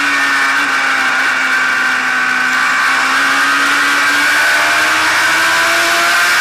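Race car engine heard onboard, running hard with a rush of wind and road noise. Its pitch dips as the car goes through the turn, then climbs steadily as it accelerates out onto the straight.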